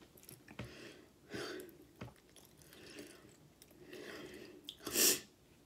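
Close-miked chewing of a mouthful of loaded nachos, soft wet mouth noises and breaths, with one louder burst of mouth or breath noise about five seconds in.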